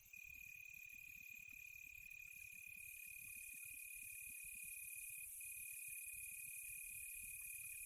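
Faint rural insect chorus, crickets chirring in a steady high trill, with a higher, hissier layer of insects filling in about two to three seconds in.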